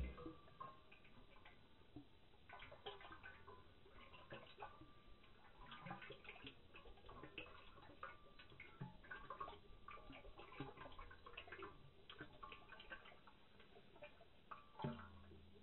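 Near silence with faint, irregular clicks and ticks. A low hum comes in near the end.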